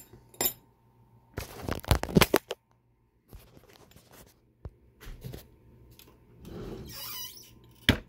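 Handling noises at a workbench: a few clicks, then a burst of knocks and rattles about a second and a half in as a metal padlock body and tools are moved on a rubber bench mat, followed by softer knocks, a rustle and a sharp click near the end.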